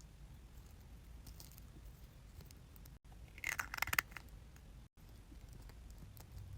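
Small plastic doll accessories being handled and fitted onto a mini toy doll: a short cluster of light clicks and scraping about three and a half seconds in, otherwise quiet.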